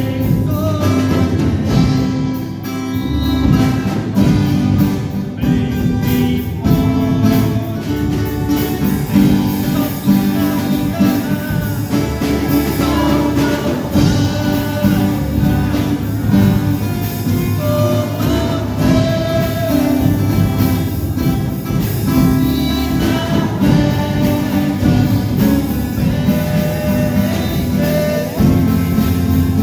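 Gospel hymn music: guitar-backed accompaniment with a sung melody.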